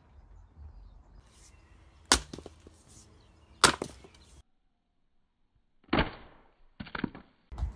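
Splitting axe chopping logs: four sharp chops, two about a second and a half apart, then after a short gap two more about a second apart.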